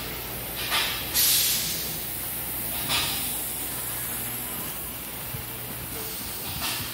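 Short hisses of compressed air, the longest and loudest about a second in, with a few briefer ones after it, over the steady low hum of shop machinery.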